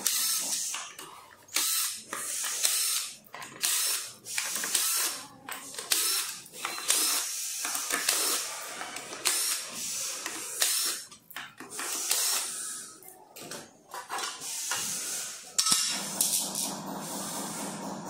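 Cordless drill-driver whirring in many short bursts as it backs the screws out of an electric scooter's deck cover.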